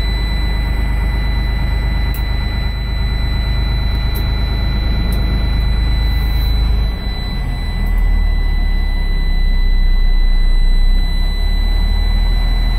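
Scania L94IB bus's 9-litre five-cylinder DC9 diesel running under way, heard from the driver's cab, with a steady high whine over it. The engine sound dips briefly about seven seconds in, then picks up again.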